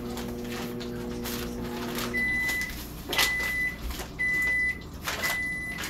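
A microwave oven's running hum cuts off about two seconds in, followed by four evenly spaced beeps about a second apart, the signal that its cycle has finished. Plastic bags crinkle as they are handled.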